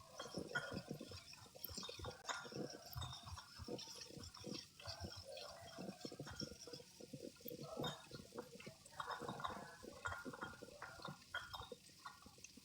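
Kitchen food-preparation sounds: irregular light splashing and dripping of water mixed with small knocks and clatters, several a second.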